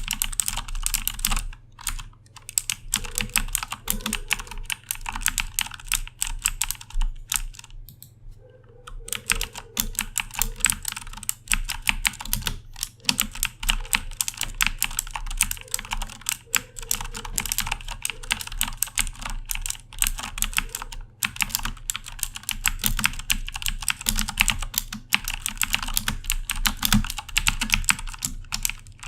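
Continuous typing on a Corsair K70 mechanical keyboard with Cherry MX Blue switches: a dense, fast stream of sharp key clicks, with a brief pause about eight seconds in.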